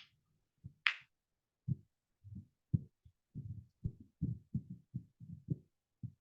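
Dull thumps of keys being pressed on a computer keyboard, irregular at first, then a quicker run of about four a second. A short breathy hiss about a second in.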